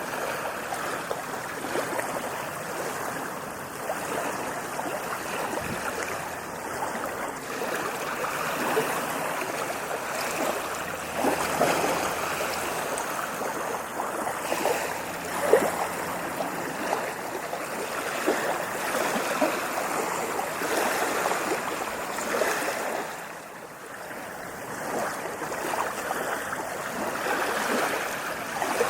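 Ocean waves washing in: a continuous rush of water full of small splashes and fizzing. It eases briefly about two-thirds of the way through, then builds again.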